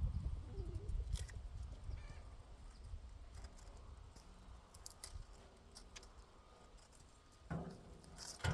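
Faint rustling and scattered small clicks from squash being picked off the vines by hand. There is low rumble at the start and a short, louder pitched sound near the end.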